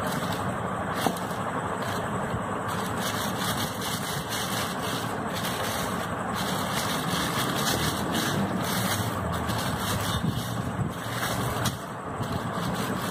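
A steady rushing background noise, with intermittent crinkling of a thin plastic sheet being handled and rolled over with a wooden rolling pin.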